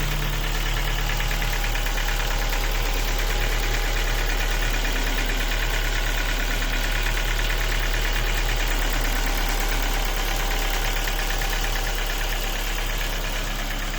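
Ford Focus Mk2 1.6-litre engine idling with a steady, rapid knock, which the owner puts down to broken piston pins.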